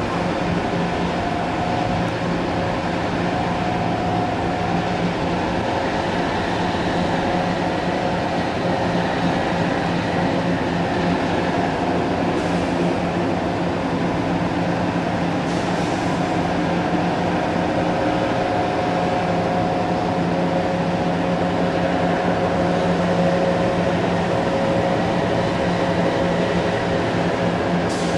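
Towboat diesel engines running in a steady drone as a barge tow moves slowly through the lock chamber, a low hum with several steady tones over a broad rumble.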